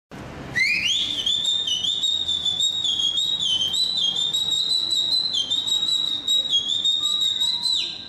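One-handed Okinawan finger whistle (yubibue) blown with a closed fist at the lips: one long high whistle that slides up at the start, wavers in small steps of pitch, and dips away just before it stops.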